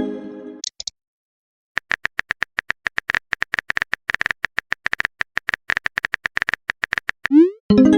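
Phone-keyboard typing sound effect: a fast run of key clicks for about five seconds. Then a short rising swoosh and a chime as a text message is sent; a chime also fades out at the very start.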